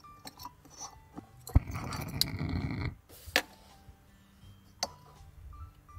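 Small gas lantern on a gas canister being lit: a sharp click about one and a half seconds in, then about a second of gas hissing, followed by a few scattered clicks.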